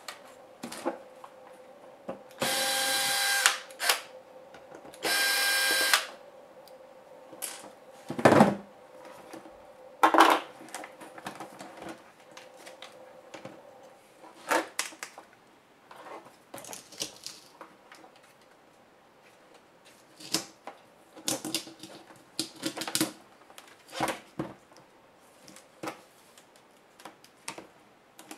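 Small electric screwdriver running in two short bursts of about a second each, driving screws out of a laptop's LCD panel. Scattered clicks and knocks of the panel and its parts being handled follow, with one heavier thump.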